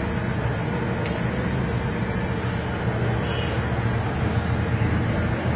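A motor vehicle engine running steadily, with a low, even rumble.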